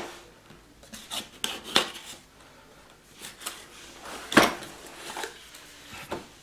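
Cardboard box being handled and opened on a wooden floor: rubbing and scraping of cardboard with a series of sharp taps and knocks, the loudest about four seconds in.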